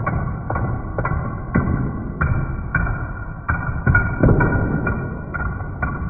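Padlocks toppling one after another like dominoes, each metal lock knocking onto the next and onto the wooden table, about two knocks a second in a steady run.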